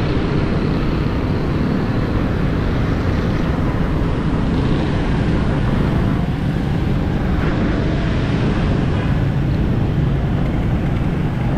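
Steady engine and road noise from a moving vehicle travelling on wet tarmac: a constant low engine hum under a hiss of tyres and air.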